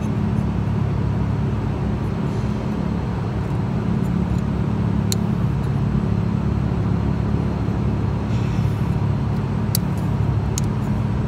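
A steady low mechanical drone, like an idling engine, with three small sharp clicks, about halfway through and twice near the end, as the wires and plastic multi-pin connector are handled.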